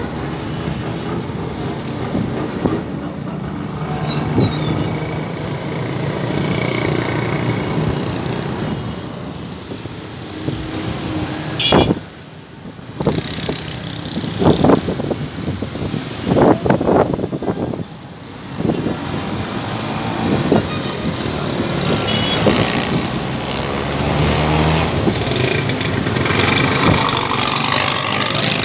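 Street traffic at a busy intersection: motorcycles, auto-rickshaws, cars and small pickups running and passing in a steady mix. About halfway through come several sharp, loud spikes, with two brief dips in the noise.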